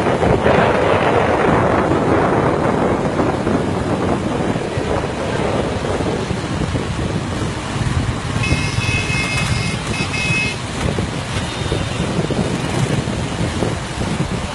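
Wind buffeting the microphone of a phone carried on a moving vehicle, over road traffic and engine noise. A high, steady tone, broken once, sounds for about two seconds a little past the middle.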